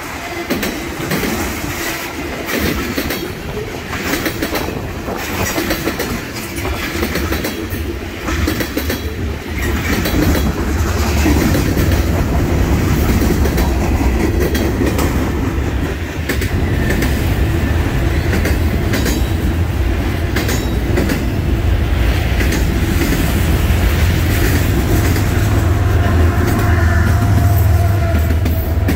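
Freight train of autorack cars rolling past, wheels clacking over rail joints above a steady low rumble that grows louder about ten seconds in.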